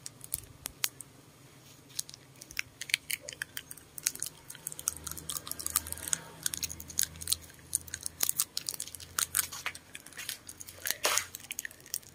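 Clothes hangers clicking and scraping on a metal clothes rail as hanging garments are pushed along and flipped through: many sharp, irregular clicks.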